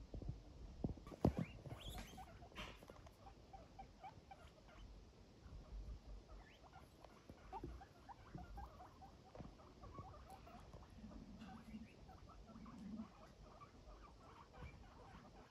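Guinea pigs making many faint, short squeaks and chirps as they move about, with one sharp click about a second in.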